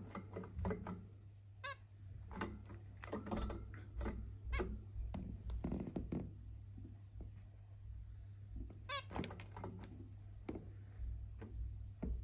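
Zebra finches calling: short, pitched calls about two seconds in and again around nine seconds, among scattered clicks and taps. A steady low hum runs underneath.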